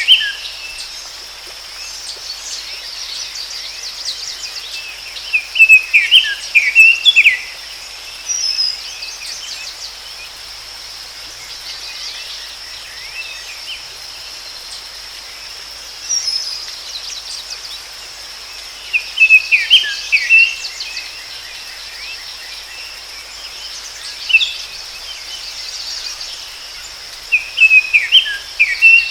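Forest ambience: a songbird sings short phrases of quick chirps every few seconds over a steady high-pitched insect drone.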